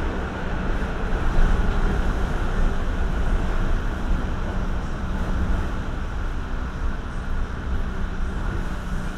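New York City Subway A train heard from inside the car as it runs into a station: a steady rumble of wheels on rail and traction motors that eases off a little toward the end as the train slows.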